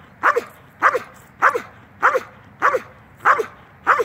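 Dog barking at a protection-training helper in a bite suit: a steady, even run of sharp barks, about seven in four seconds. This is guarding barking in bite-work training.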